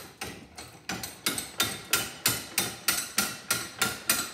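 Bench vise handle being spun to close the jaws, the sliding handle bar clanking against its end stops about three times a second, each clank with a short metallic ring.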